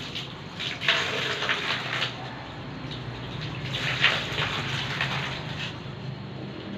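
Water splashing and trickling in a few irregular bursts as a cloth is soaked in water and wrung out, over a steady low hum.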